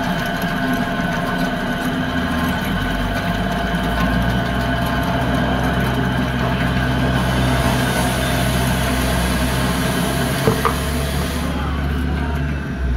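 Drill press motor running steadily while the bit drills out the rivets holding the old lining to a tractor brake band. A higher cutting hiss joins from about seven to eleven and a half seconds in, with a sharp click about ten and a half seconds in.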